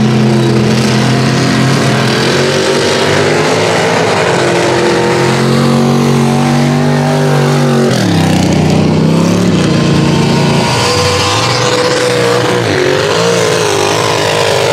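Mud-racing pickup truck's engine running hard at high revs, the pitch wavering as the truck drives the track. About eight seconds in the pitch drops sharply, then climbs again.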